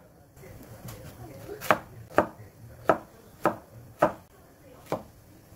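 Kitchen knife cutting a Korean zucchini into chunks on a wooden cutting board: six sharp knocks of the blade meeting the board, starting a little over a second in and coming roughly every half second to second.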